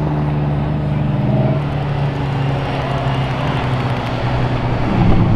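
Lamborghini Huracán Sterrato's naturally aspirated 5.2-litre V10 running at a steady, low note as the car drives past. The note rises and grows louder near the end as it picks up speed.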